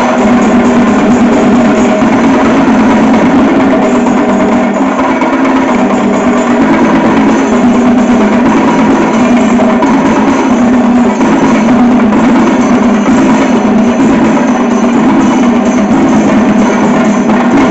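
Chenda melam: a group of chenda drums beaten together in a loud, dense, unbroken rhythm.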